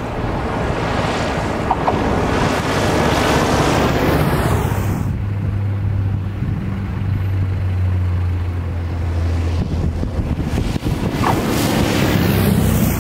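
Single-engine propeller light aircraft running at high power on or just off the runway, a steady low propeller drone under a rushing sound that swells, eases about five seconds in, and swells again near the end. Wind buffets the microphone.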